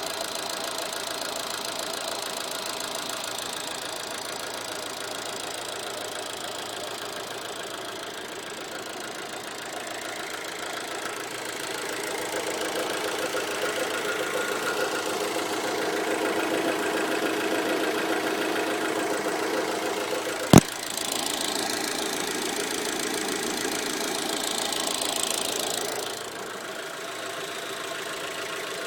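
Fiat Bravo engine running steadily, which the owner finds makes a strange noise. It grows louder from about twelve seconds in and drops back near the end, with one sharp click about two-thirds of the way through.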